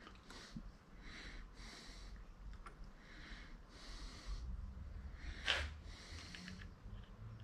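Faint breathing in short, rhythmic puffs, about one to two a second. About five and a half seconds in there is a single sharp clink, as clamp hardware is handled on a mill table.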